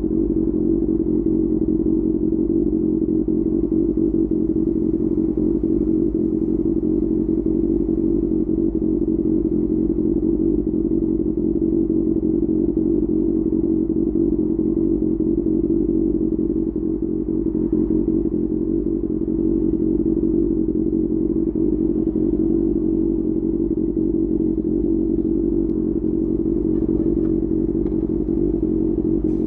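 QJ Motor SRK600's inline-four engine idling steadily through an SC-Project aftermarket exhaust, a deep, even exhaust note with no revving.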